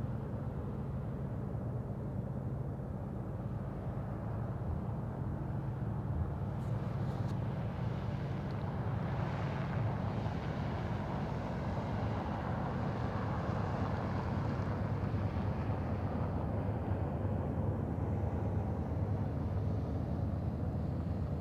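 Diesel freight locomotives running, heard as a steady low drone with several hum tones and a little more hiss in the middle.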